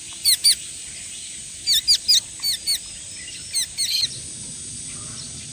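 A young hand-fed bird chirping: about ten short, high notes, each dropping quickly in pitch, in quick clusters of two or three.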